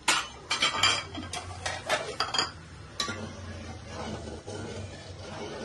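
Metal spoon and utensils clinking against a metal plate and cooking pot, a quick run of sharp clinks over the first two and a half seconds and one more about three seconds in. After that comes quieter stirring in a copper handi of curry.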